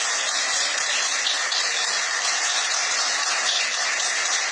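A small group of people clapping steadily.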